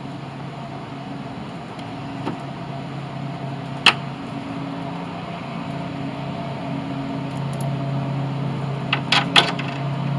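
Steady low hum in the workshop, with one sharp click about four seconds in and a quick run of three or four metallic clicks near the end as hand tools and bolts are handled on the mower.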